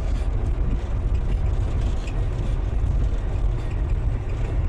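Steady low rumble of a loaded semi-truck driving on a snowy highway, heard from inside the cab: engine and road noise with no distinct events.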